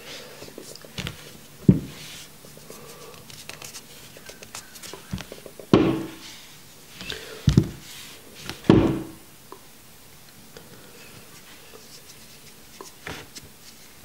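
A few knocks and thuds, the loudest about two, six, seven and a half and nine seconds in, with light clicks and rustling between, as a vape box mod and small metal atomizer parts are handled on a tabletop.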